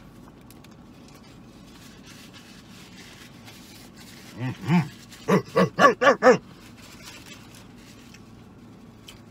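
A man humming "mmm" in enjoyment with his mouth full of burger: two short hums about four and a half seconds in, then a quick run of five hums about four a second.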